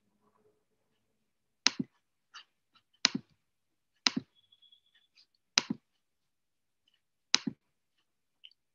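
Computer mouse clicks: five sharp clicks at uneven intervals, each a quick double like a button pressed and released, with fainter clicks in between.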